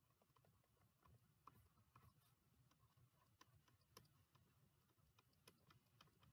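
Near silence with faint, irregular clicks and taps of a stylus on a touchscreen as handwriting strokes are drawn.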